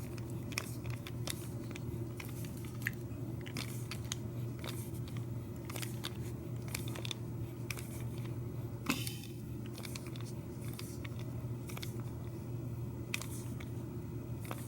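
Screws being turned in by hand with a screwdriver in a deadbolt lock: irregular small clicks and crunchy scraping, over a steady low hum.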